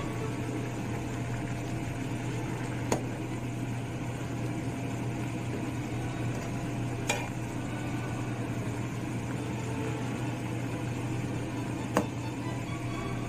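A pot of doenjang ramyeon broth bubbling on the stove under a steady low hum, with a metal ladle clinking against the pot three times, a few seconds apart.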